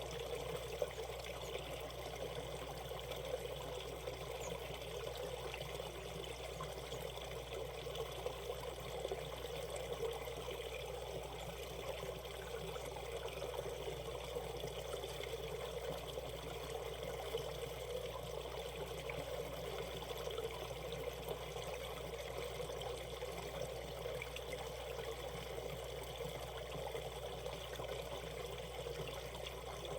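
A shallow valley stream running over stones: a steady, even flow of water.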